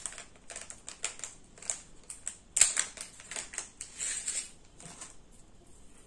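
Hands handling small jewelry pieces and their packaging: an irregular run of sharp clicks and rustles, busiest in the middle, with a short rustle about four seconds in.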